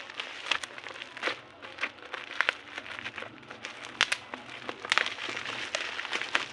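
Packaging being crinkled and handled while a parcel is unboxed: irregular crackles and sharp clicks scattered throughout.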